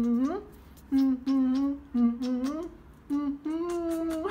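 A woman humming a short tune: about six hummed notes with short gaps between them, several ending in an upward slide.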